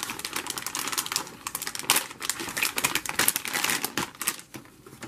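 Foil-and-plastic lure pouch being torn open and handled, a dense, irregular run of sharp crinkles and crackles, with the clear plastic tray of soft-plastic baits pulled out of it.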